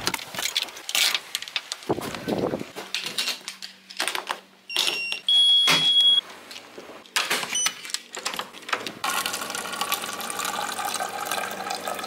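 Clicks and rattles of handling, with keys jangling, then a steady electronic beep lasting about a second near the middle. From about nine seconds in, water runs from a water dispenser into a paper cup over a low machine hum.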